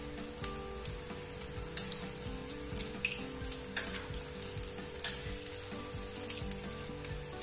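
Bottle-gourd and potato kofta balls deep-frying in hot mustard oil in an iron kadhai, sizzling steadily with scattered sharp pops, while being turned gently with a slotted spoon.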